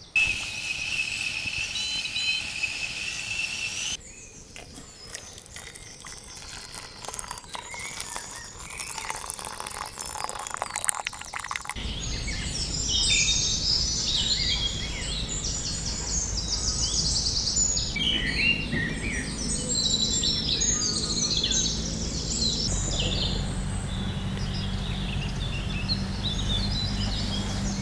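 Dawn chorus of many songbirds singing at once, densest in the second half, over a steady low rumble. The sound changes abruptly twice: a steady high tone fills the first few seconds, then scattered clicks come before the birdsong thickens.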